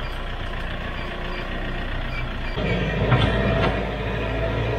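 Daedong farm tractor's diesel engine running while it scrapes and pushes the dirt floor with its loader. The engine sound gets heavier about halfway through, and there are a few short clanks a little later.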